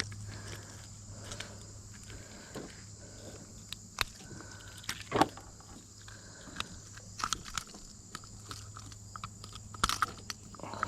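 Handling and unhooking a landed fish in a kayak: scattered clicks, knocks and rattles of hook and fish against the boat, the loudest a sharp knock about five seconds in and quick rattling near the end, over a steady low hum.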